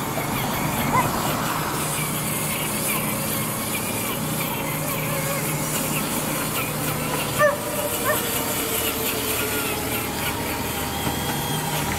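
Electric motor and gearbox of a Traxxas TRX-4 Sport RC crawler whining steadily as it crawls over rocks, the pitch drifting with the throttle. A short animal call cuts in about seven and a half seconds in.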